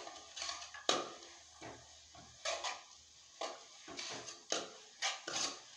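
Metal spoon scraping and knocking against an aluminium pan while sliced onions are stirred as they fry, in short strokes about once a second.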